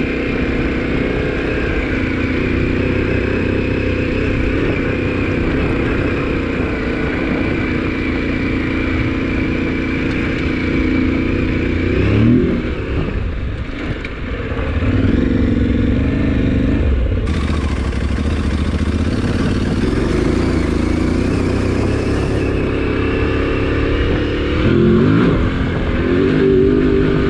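Adventure motorcycle engine running under way, heard from the rider's own bike. The revs rise and fall with throttle and gear changes, picking up sharply about halfway through and again near the end.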